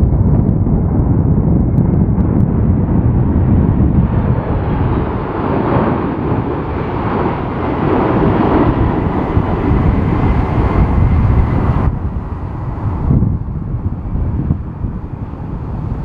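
Jet engines of a Boeing 747-400 freighter on low final approach, a faint steady whine over the noise, half buried under heavy wind rumble on the microphone in gale-force gusts. The jet noise swells toward the middle, and its higher part drops away suddenly about twelve seconds in.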